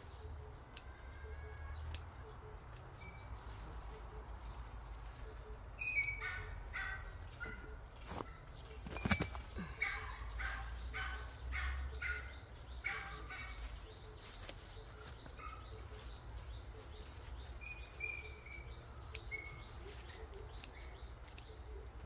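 Wild birds singing: a run of short chirping notes through the middle, with a few more later. About nine seconds in there is one sharp click.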